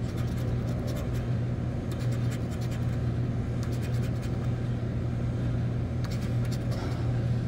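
The back end of a pencil scraping the coating off a scratch-off lottery ticket in several short spells of quick strokes, over a steady low hum.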